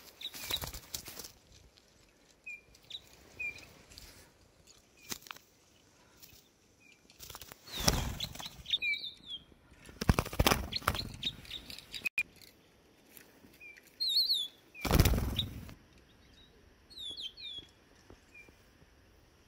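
Small finches calling with short, scattered chirps, broken by three loud bouts of wing-flapping and rustling right at the microphone, about eight, ten and fifteen seconds in.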